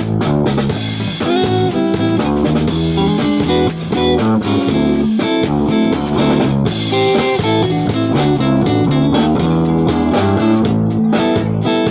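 Live band playing an instrumental passage with electric guitar, bass guitar and drum kit.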